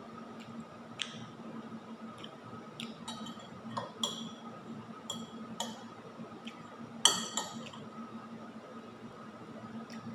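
Eating sounds at a table: a spoon clinking and tapping against a ceramic bowl while food is handled, a scattering of light clicks with one sharper clink about seven seconds in, over a faint steady hum.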